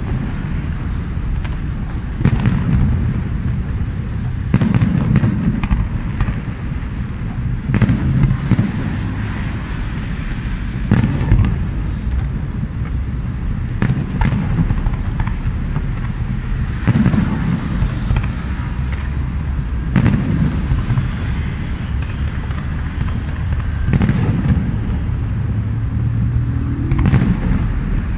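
Fireworks display: aerial shells going off one after another, a bang every two to three seconds over a steady low rumble.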